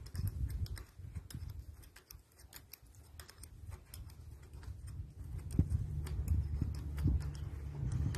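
Small, irregular metallic clicks of a spanner turning the terminal nuts on a Paris Rhône starter solenoid. A low steady hum joins in just past halfway.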